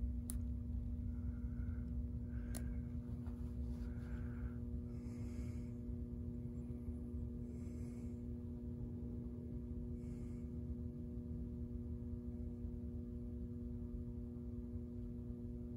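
Microwave oven transformer humming steadily while energized at high voltage, with a couple of faint sharp clicks in the first few seconds. Little is happening at the wood: nothing significant is burning.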